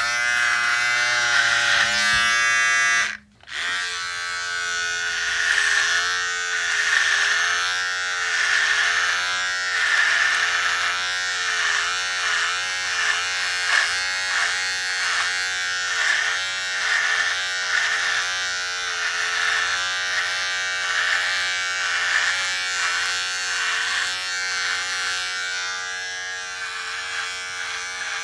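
Electric shaver buzzing. It cuts out for a split second about three seconds in, then runs on with its pitch wavering slightly.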